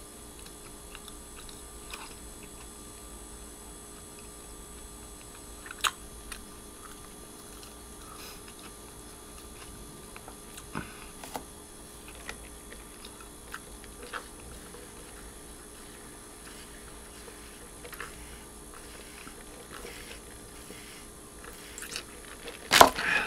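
A person chewing and sipping a drink through a straw: soft, scattered mouth clicks over a steady faint room hum, with a short cluster of louder clicks and knocks near the end.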